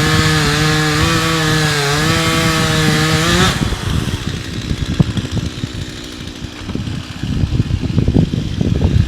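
Chainsaw running at high revs with its pitch wavering under load as it cuts wood, then cutting off suddenly about three and a half seconds in. Irregular crackles and knocks follow.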